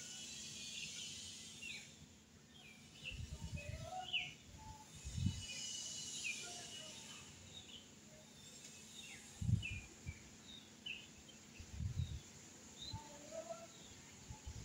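Faint bird chirps, short high calls scattered throughout, with a few soft low thumps.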